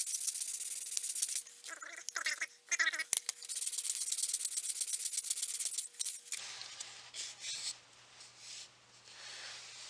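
Rapid back-and-forth hand sanding with sandpaper wrapped around a quarter-inch dowel, smoothing an epoxy-putty repair in a wooden frame: a dense rasping of strokes, with a short break about a second and a half in. It stops about six seconds in, leaving faint background hum.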